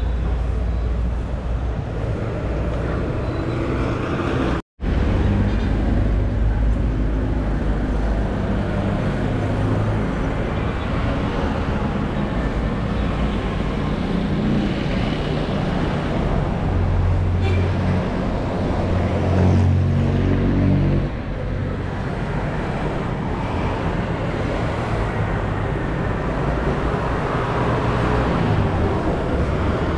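Street traffic: a steady hum of motor-vehicle engines and tyres, with one engine passing close and louder about two-thirds of the way through. The sound cuts out for an instant about five seconds in.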